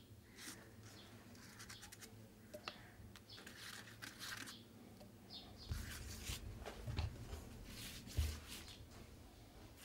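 Faint, scratchy swishes of a thin paintbrush stroking across rough, fibrous paper, with a few dull bumps in the second half.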